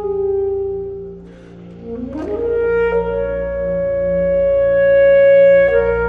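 Alto saxophone playing long held notes over a low, steady electronic drone from the tape part. One note fades out about a second in. After a short pause a new note scoops upward into a sustained tone, steps up and swells to its loudest, then drops back down near the end.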